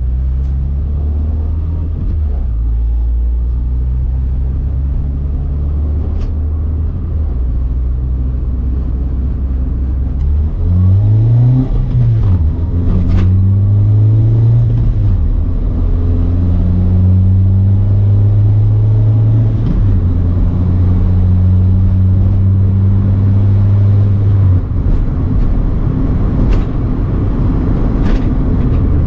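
Honda Civic four-cylinder engine and exhaust on a drive: a steady low drone, then about ten seconds in the revs climb, drop back at a gear change and climb again, holding a steady higher note before easing off near the end.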